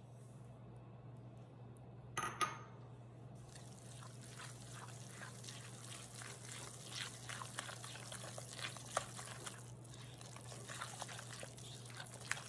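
Granulated sugar poured into a glass bowl of pumpkin purée, a short hiss about two seconds in. Then a whisk stirring the thick purée, with wet scraping and light clicks against the glass.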